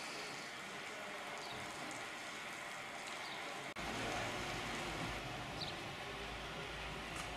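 Outdoor town-square ambience: a steady hiss of distant traffic and street activity with a few faint, short high chirps. Just past halfway the sound drops out for an instant at an edit, then returns slightly louder with a low rumble.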